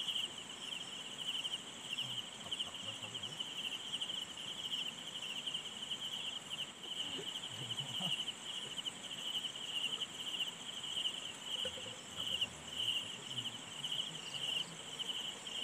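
Night insects trilling in a dense, unbroken chorus at a high pitch, with a thinner, still higher steady buzz above it.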